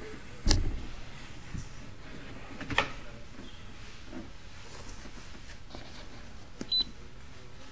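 Two sharp knocks about two seconds apart as the push camera and its cable are pulled back through the 8-inch pipe, over a steady faint hiss. A short high beep comes near the end.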